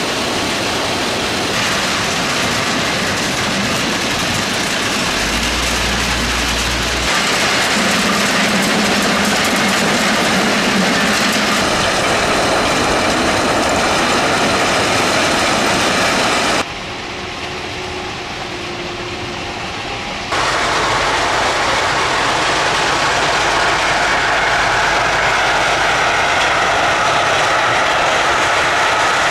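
Heavy track-renewal train at work laying new track: the steady, loud running of its diesel engines and machinery. The sound changes abruptly several times and drops noticeably for a few seconds past the middle.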